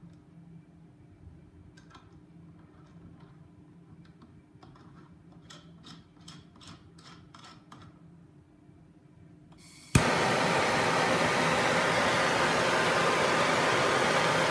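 Light clicks and taps of a brass Nerrad FireJet nozzle being handled and screwed onto a hand torch's wand, with a quicker run of clicks partway through. About ten seconds in, a sharp igniter click and the torch lights, then a loud steady hiss of burning gas.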